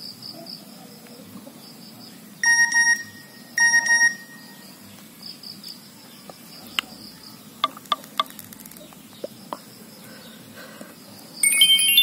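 Nokia E71 message alert tones previewed through the phone's loudspeaker. There are two short beeps about 2.5 and 3.7 seconds in, then a few light key clicks, then a brighter chiming tone starting near the end. Insects chirp steadily underneath.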